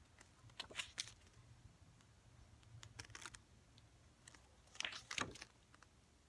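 Pages of an album photobook being turned by hand: three short bursts of papery flicks and rustles, about a second in, around three seconds, and near five seconds.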